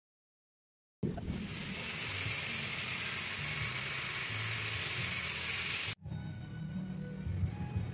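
A steady, bright hiss starts about a second in and runs evenly for about five seconds before cutting off abruptly. A quieter low hum of background noise follows.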